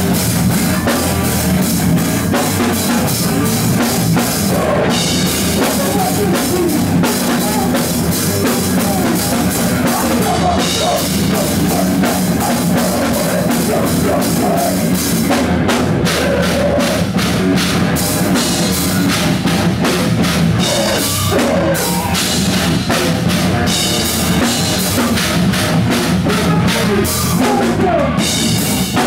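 Live rock band playing loud, with a driving drum kit (bass drum and cymbals) under the full band.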